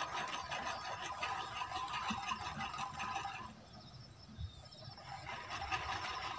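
A steady, fast-pulsing chorus of small calling creatures that fades out for about a second and a half past the middle and then comes back, over faint low sloshes of hands working in muddy paddy water.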